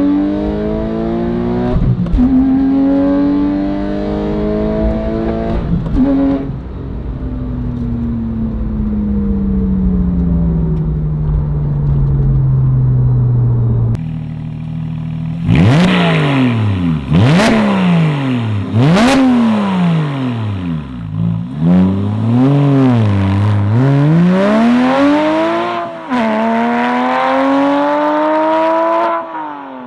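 Porsche 911 Carrera S (997.1) 3.8-litre flat-six breathing through a Fabspeed Supercup exhaust and 200-cell X-pipe. In the first half, heard from inside the cabin, it pulls through two upshifts and then winds down in pitch as the car slows. In the second half, heard from behind the car, come a series of sharp revs rising and falling, then a long rising pull as the car accelerates away.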